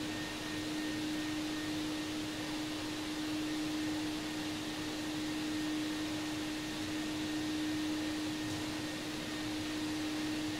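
Canister wet/dry vacuum cleaner running steadily while its floor nozzle is worked over a wooden floor: a constant rushing hiss with a steady motor hum and a faint higher whine.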